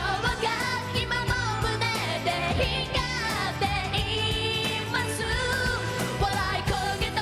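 J-pop song sung by a female vocal group over a pop band backing with a steady drum beat.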